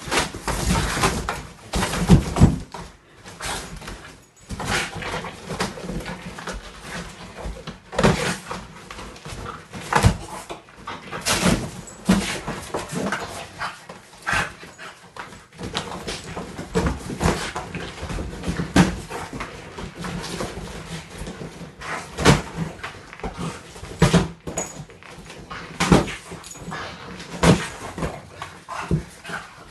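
French bulldog tearing and scratching at a cardboard box from inside it: cardboard ripping, crumpling and scraping in irregular bursts, mixed with the dog's own vocal noises.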